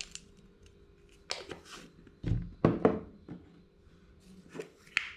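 Kitchen handling noise as spice containers and a spoon are picked up and set down: a scattering of short knocks and clicks, the loudest a dull thump a little after two seconds in, followed by two sharper knocks.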